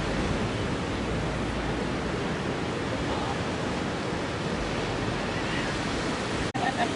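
Ocean surf: a steady rushing wash of breaking waves, which cuts out for an instant near the end.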